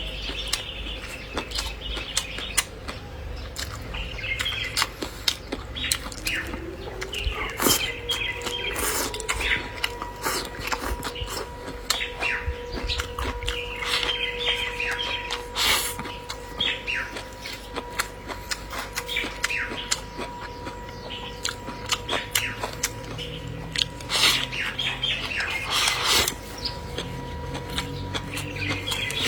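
Close-up chewing and lip-smacking of someone eating meat, many wet clicks in quick succession, with birds chirping in the background. A steady hum comes in about a fifth of the way through and stops near the end.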